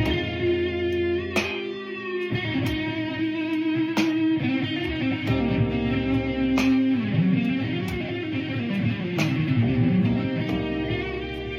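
Guitar playing blues: plucked notes ringing on, several bent up and down in pitch, over low sustained notes.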